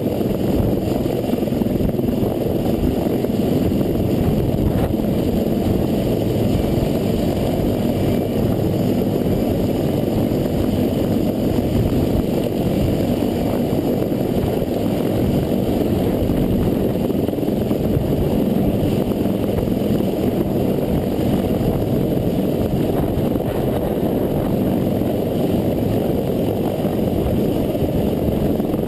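CH-53E Super Stallion heavy-lift helicopter hovering directly overhead: loud, steady rotor and engine noise with the rush of its downwash, heard from right beneath the aircraft.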